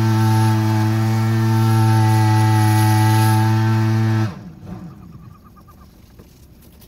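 Backpack power duster (engine-driven blower) spreading granular fertilizer, its small engine running steadily at high speed with a rushing hiss of air. A little over four seconds in it is shut off, the pitch falling briefly as it winds down, once the first bag of fertilizer has been spread.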